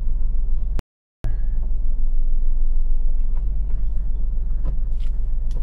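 A Tata car's engine running at low revs as the car reverses slowly, a steady low rumble that cuts out briefly about a second in. A few faint clicks near the end.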